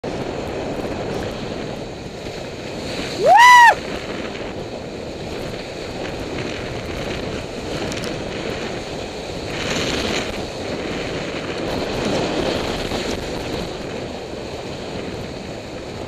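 Water rushing and spraying past a Corsair F31 trimaran's hulls at speed, with wind buffeting the microphone and the rush swelling a couple of times. About three seconds in, one short, loud pitched cry or whistle that rises sharply and then dips slightly.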